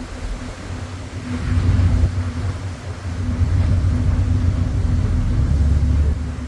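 A low, gusty rumble of wind buffeting the microphone over a steady engine hum, typical of filming from a moving boat; the rumble swells about a second and a half in.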